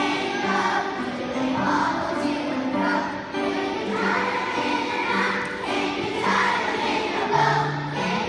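A large choir of young schoolchildren singing a song together in unison.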